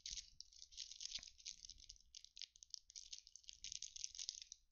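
Thin cellophane wrapper of a trading-card pack crinkling and crackling as fingers tear it open.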